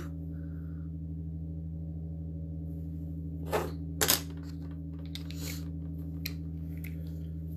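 A few sharp clicks and taps of makeup containers and tools being handled and set down, the loudest a quick double click about four seconds in, over a steady low hum.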